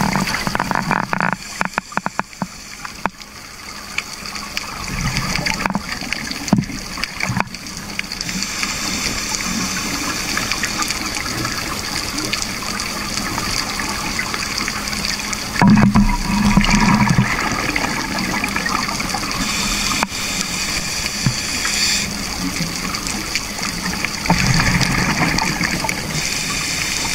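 Scuba regulator heard underwater: bursts of exhaled bubbles a few seconds apart over a steady background hiss, the loudest burst about sixteen seconds in.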